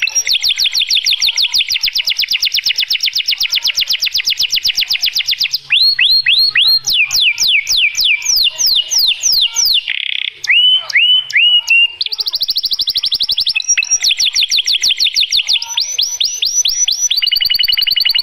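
Male white canary singing its breeding song, a long unbroken string of rapid trills. A very fast rattling trill gives way about six seconds in to slower runs of falling notes, then to fast trills again in the last third.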